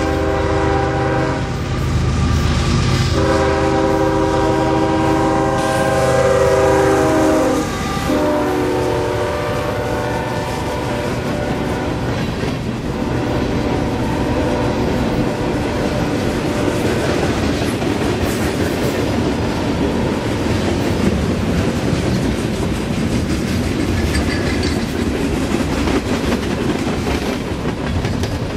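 Freight train's diesel locomotive horn sounding two long blasts: the first ends about a second in, and the second starts about three seconds in and drops in pitch as the locomotives pass. After that a long string of freight cars, hoppers and tank cars, rolls by with a steady rumble of wheels and rhythmic clatter over the rail joints.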